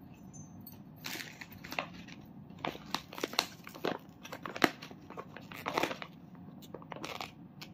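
Irregular crinkling and rustling, broken by a few sharp light clicks, as something crinkly is handled.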